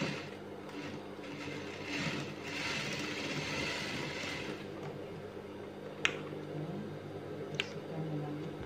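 Juki industrial sewing machine running and stitching through fabric for a few seconds over its motor's low hum. Later come two sharp snips as scissors cut the thread.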